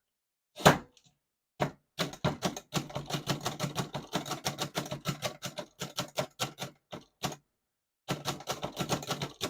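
A 1940 Remington Deluxe Noiseless portable typewriter being typed on: a run of muffled keystroke clacks, about four to five a second. A single louder clack comes just under a second in, and near the end there is a pause of about a second before the typing resumes.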